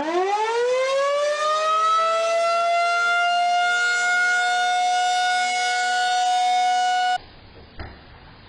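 Tornado warning siren winding up from a low pitch to a steady high wail over about two seconds, held, then cut off suddenly about seven seconds in.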